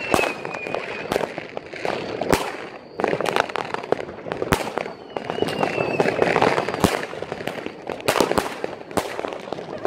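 New Year's Eve fireworks going off all around: irregular sharp bangs of firecrackers and rockets over a continuous crackle. A whistling rocket sounds at the start and another about five seconds in, each whistle drifting slightly lower.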